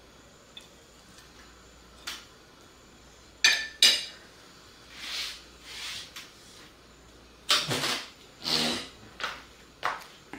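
Cutlery clinking and scraping against dishes in a series of separate strokes: a light click about two seconds in, two sharp clinks around the middle, short scrapes, then a louder cluster of knocks and scrapes near the end.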